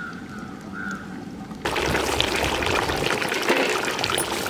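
Country chicken curry boiling hard in the pot, a steady dense bubbling that comes in suddenly about a second and a half in. Before it there is a quiet stretch with a few short faint chirps.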